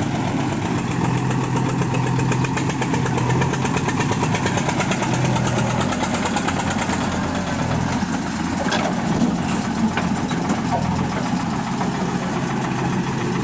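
JCB 3DX backhoe loader's diesel engine running steadily, its low note shifting a little about halfway through.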